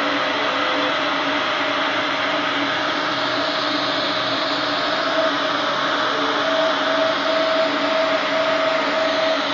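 Epilog Mini 24 CO2 laser cutter at work cutting 3 mm wood: a steady rush of moving air, with the cutting head's drive motors whining in short, repeated pulses as the head traces the cut, about three a second in the second half.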